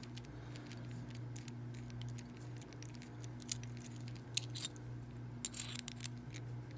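Scattered small metal clicks and light taps from handling a Master round-body padlock being taken apart after a tight threaded part was broken free, with more clicks in the second half. A steady low hum runs underneath.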